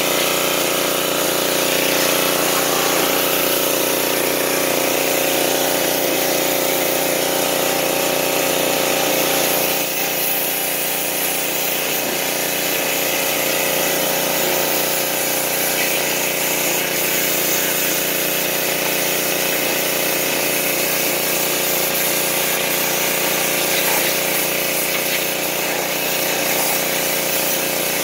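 Gasoline-powered Craftsman pressure washer running steadily at full throttle, its small engine and pump drone mixed with the loud hiss of the high-pressure water jet spraying against a steel snow plow.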